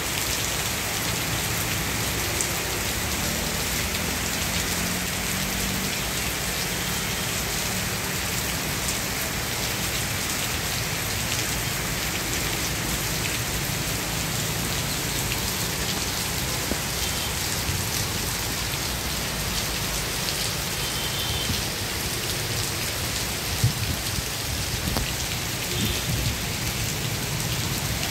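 Heavy rain pouring steadily onto paved paths, puddles and foliage. There is one sharp knock late on.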